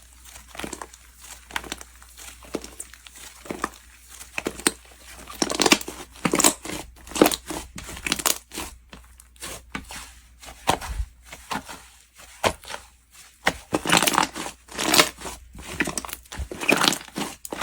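Slime being squished and stretched by hand, giving irregular crinkly, crunchy crackles in quick clusters.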